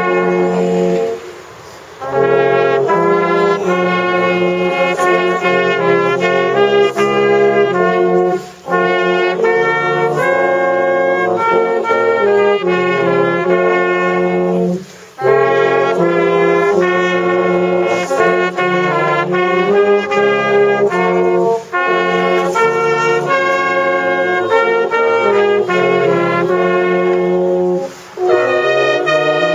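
Brass band playing a carol in full sustained chords, phrase by phrase, with short breaks between the lines about every six seconds.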